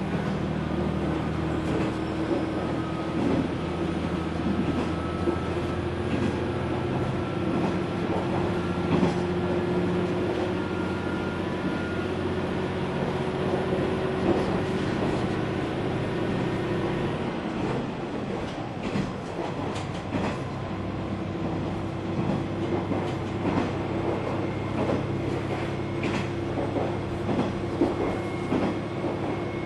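Running sound inside a KiHa 120 diesel railcar under way: the diesel engine's steady drone over running noise, with wheels clicking over rail joints. The engine note drops away about two-thirds of the way through and settles to a new steady note a few seconds later.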